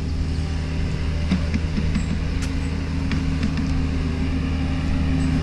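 A mini excavator's diesel engine idling, a steady, even low hum at constant revs. A few faint footstep ticks on the dirt bank sound over it.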